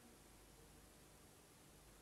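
Near silence: faint steady hiss and low hum of room tone.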